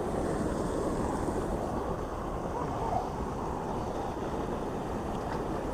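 Steady rush of water pouring over a mill-dam waterfall, an even, unbroken roar.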